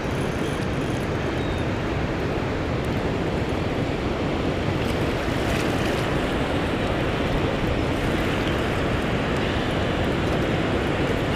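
Steady roar of water rushing through a dam spillway, an even rushing noise that holds at one level throughout.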